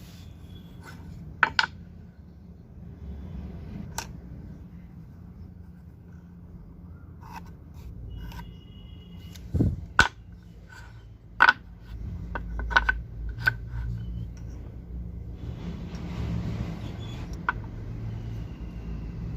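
Woodworking shop handling sounds: scattered sharp clicks and knocks of wooden parts and tools being handled and set down, over a low background rumble that grows louder near the end.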